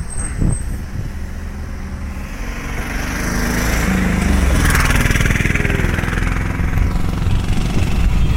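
Engine and road noise of an open safari jeep driving along a paved road, heard from on board. It grows louder about three seconds in.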